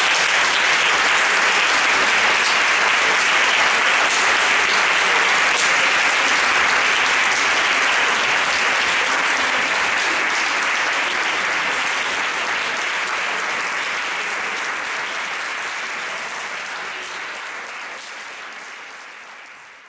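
Large audience applauding: a long, steady round of clapping that fades away over the last few seconds.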